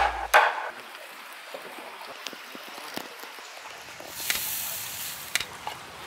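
A wide caveman-style cleaver chops through raw meat into a wooden cutting board with one sharp knock just after the start. Fainter scattered clicks of cutting follow, with a brief hiss a little past the middle.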